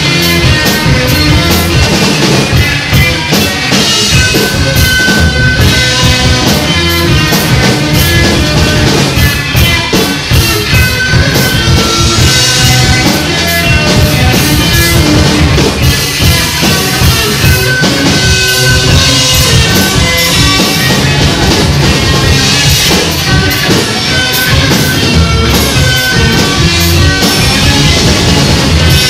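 Loud rock music with a steady drum-kit beat under sustained instrumental notes.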